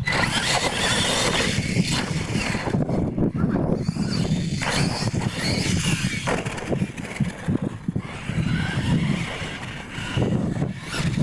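Losi LMT battery-electric radio-controlled monster trucks racing on dirt: their brushless motors whine up and down in pitch as the throttle changes, over the scrabble of tyres, with a few sharp thumps as the trucks land off jumps.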